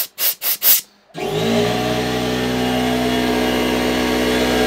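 Four quick blasts of compressed air from a blow gun clearing carburettor passages, then about a second in the workshop air compressor kicks in and runs steadily, its motor and pump refilling a tank that is low on air.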